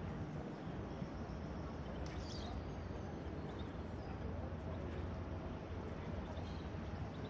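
Outdoor quayside ambience: a steady low rumble with an even background hiss, faint distant voices, and a short bird call about two seconds in.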